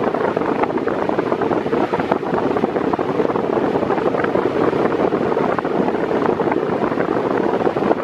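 Mondial Maxi Power Black 40 cm 140 W floor fan running at medium speed: a loud, steady rush of air, with the fan's airflow blowing on the microphone.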